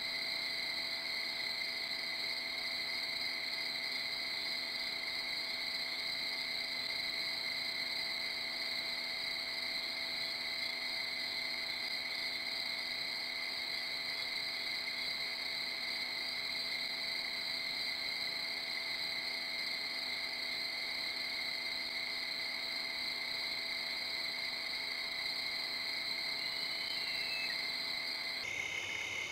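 Steady night chorus of insects, a constant high-pitched singing, which changes abruptly near the end.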